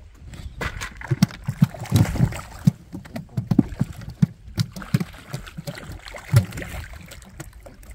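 A hooked boga splashing and thrashing at the water's surface as it is reeled in, with irregular splashes and knocks, the loudest about two seconds in and again near the end.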